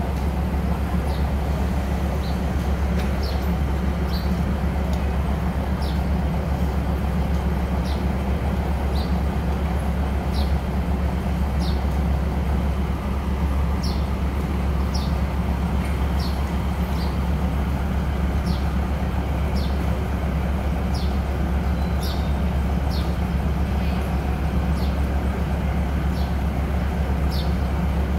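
Diesel railcar train standing at the platform with its engine idling, a steady low rumble. Short high bird chirps come about once a second over it.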